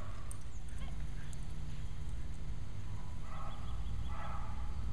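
Wind buffeting the microphone as a steady low rumble, with two short pitched calls about three and four seconds in.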